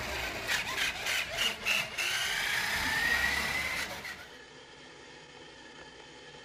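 Electric motor and gears of a remote-control toy dump truck running with a high whine that rises slowly in pitch, with several sharp clicks in the first two seconds. About four seconds in, it cuts to the faint, steady hiss of an old home video tape.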